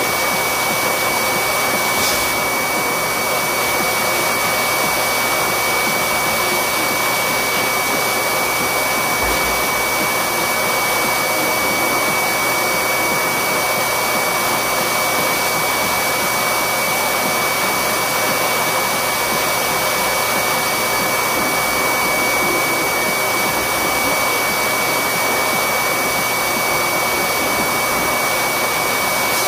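An electric blower motor running steadily: a loud, even rush of air with a thin high whine over it. There is a short click about two seconds in.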